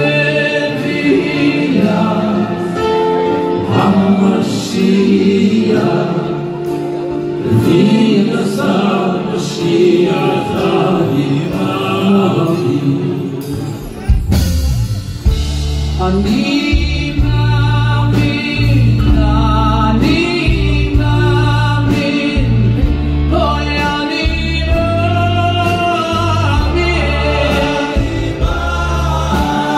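Men singing a slow song into microphones over amplified instrumental accompaniment. A deep bass part comes in about halfway through.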